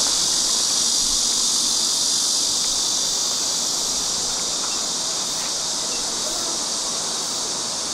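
Steady, high-pitched insect chorus, a dense hiss-like drone that eases slightly in level toward the end.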